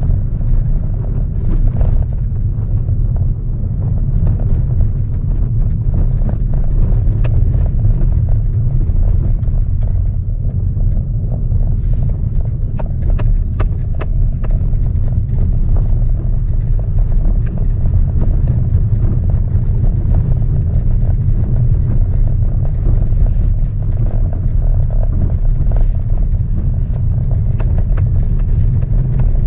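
Suzuki Ignis 1.2 inline-four petrol with automatic gearbox heard from inside the cabin while driving slowly: a steady low rumble of engine and road noise. Scattered light clicks and knocks come through, most of them around the middle.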